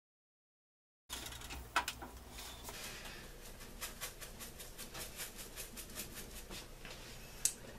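Chicken pieces sizzling faintly in a frying pan on an electric stove, a steady run of small crackles and ticks that starts about a second in. There is a knock shortly after it starts and a sharp click near the end.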